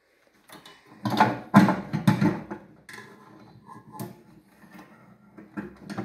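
Metal clunks and rattling as a replacement magnetron is handled and seated in a microwave oven's housing. A loud cluster of knocks comes about a second in, followed by lighter scattered clicks.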